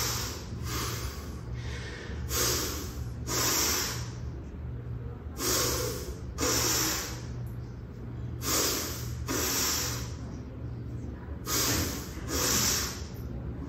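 A man breathing hard through a set of one-arm kettlebell presses. Each press brings a pair of loud, forceful breaths, repeating about every three seconds, over a steady low hum.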